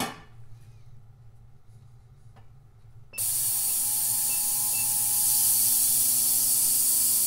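A metal lid clanks onto the stainless tank of a ProSonik digital heated ultrasonic cleaner. About three seconds in, the cleaner is switched on and runs with a loud, steady hiss over a faint hum.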